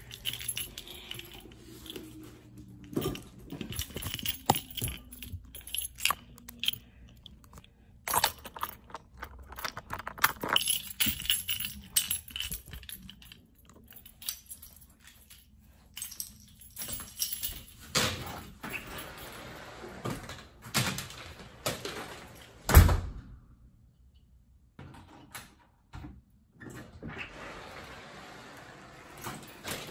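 Scattered clicks, knocks and thuds of a person moving about a room and through a door, with one much louder thud about three quarters of the way through.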